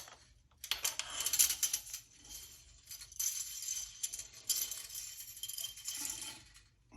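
Metal magazine cap of a Remington 870 shotgun's extended magazine tube being unscrewed by hand. The threads rasp and the magazine spring jingles as it comes free of the tube, in irregular metallic runs lasting several seconds.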